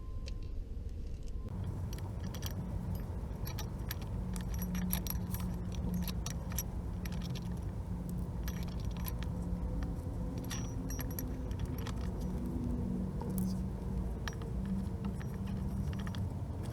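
Light metallic clinking and jingling, scattered irregular ticks, over a steady low hum that starts about a second and a half in.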